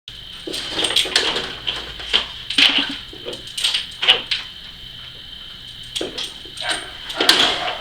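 A dog barking repeatedly in short, irregularly spaced barks, over a steady high-pitched hum.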